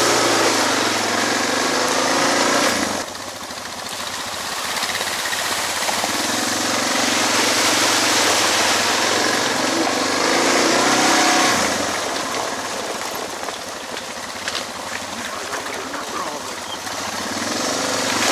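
Suzuki DR650 single-cylinder motorcycle engine running under way on a rough trail, mixed with a broad rushing noise. The engine note drops after about three seconds, climbs again through the middle and then eases back.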